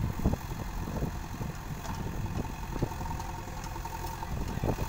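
JCB 3DX backhoe loader's diesel engine running steadily while the backhoe arm works in wet mud, with a few short knocks scattered through.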